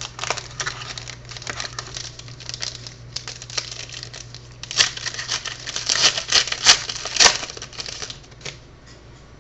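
Trading cards and their packaging being handled close to the microphone: rapid crinkling and clicking, busiest in the middle with a few sharp snaps, then stopping near the end.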